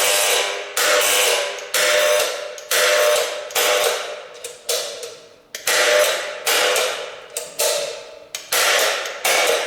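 Curtain drop controller's solenoid-driven aluminum clamps clacking open and shut over and over, about one sharp metallic clack a second, each ringing briefly.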